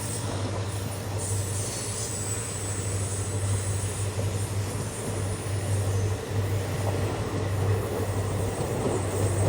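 Indian Railways passenger train of ICF coaches running past, a steady rumble with a constant low hum underneath. A thin high whine rides over it for a few seconds about a second in.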